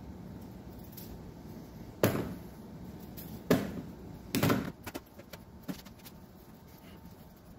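Chunks of raw peeled potato, cut off in the hand with a kitchen knife, dropping into a clear plastic tub: three sharp knocks about two, three and a half and four and a half seconds in, then a few lighter taps.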